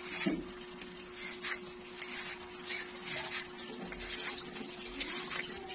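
A Y-shaped vegetable peeler scraping the skin off a taro root, in short, irregular rasping strokes.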